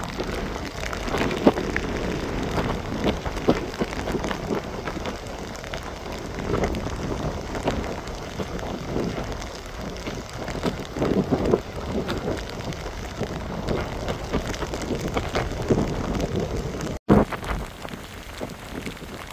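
Hurricane wind and rain buffeting the microphone in uneven gusts over choppy, wind-driven surge water. The noise eases abruptly near the end.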